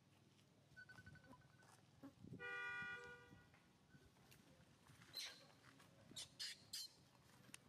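A vehicle horn sounds once, a steady tone lasting about a second, a little before the middle. Later come several short, high-pitched chirps.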